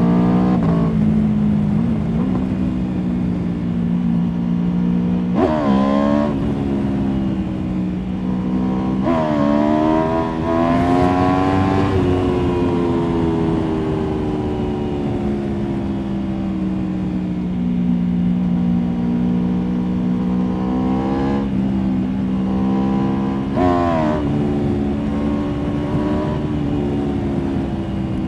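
Aprilia Tuono V4 motorcycle's V4 engine running under way, its pitch slowly rising and falling with the throttle. Several sudden jumps in pitch at gear changes: about five seconds in, around nine seconds, and twice more past twenty seconds.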